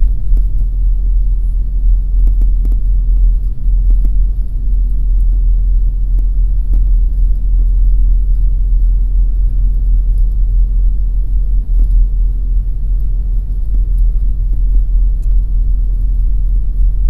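Daihatsu Taft kei car driving, a steady low rumble of its small three-cylinder engine and road noise heard from inside the cabin.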